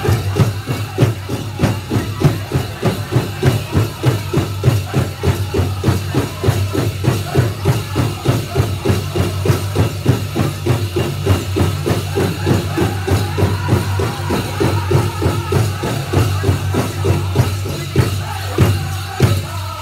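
Powwow drum group striking a big drum in a fast, steady beat and singing, with the jingle of dancers' bells over it.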